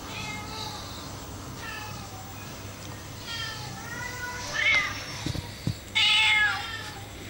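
A cat meowing repeatedly: about five meows, the loudest about six seconds in.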